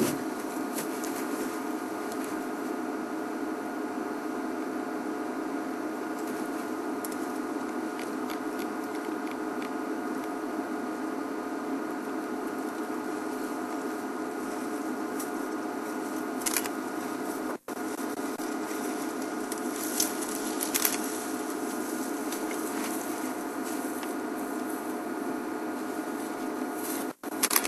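Steady hum from the engine of an open game-drive vehicle, with a few faint clicks past the middle. The sound cuts out for an instant twice, once past the middle and once near the end.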